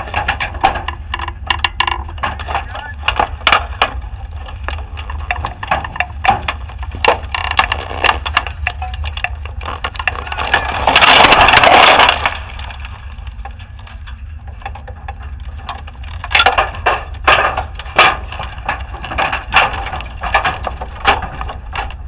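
Irregular clicks, knocks and rattles around an overturned sprint car, over a steady low rumble, with one loud rushing hiss lasting about a second near the middle.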